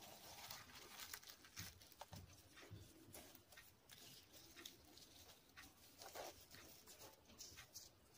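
Faint crackling and soft tearing of a deep-fried puri being pulled apart by hand, in irregular small clicks.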